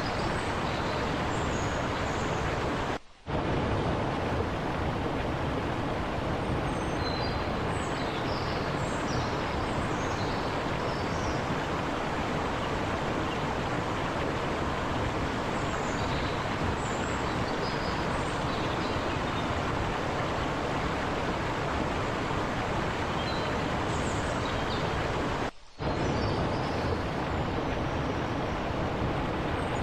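Forest river flowing and babbling over rocks in a steady rush, with faint short high chirps of small birds now and then. The sound cuts out briefly twice, about three seconds in and again near the end.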